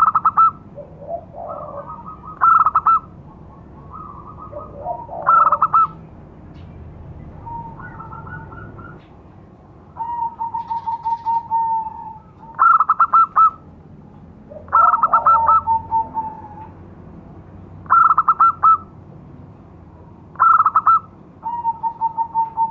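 Zebra dove (perkutut) cooing: short rippling phrases of quick staccato notes, repeated every two to three seconds, with softer drawn-out notes in between.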